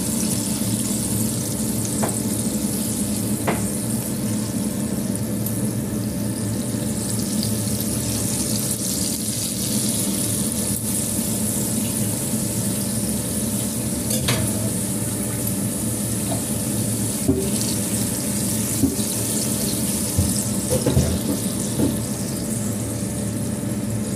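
Minced-beef, egg and onion patties sizzling steadily as they shallow-fry in oil in a stainless wok, with a few short scrapes and taps of a spatula against the pan as they are turned.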